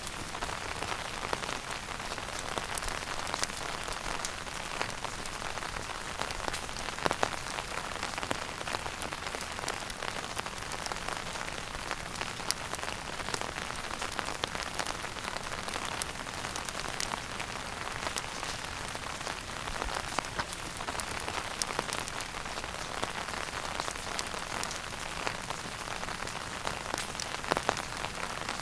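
Wood fire burning in a fireplace: a steady soft hiss with constant small crackles and a few louder pops, one about seven seconds in and a pair near the end.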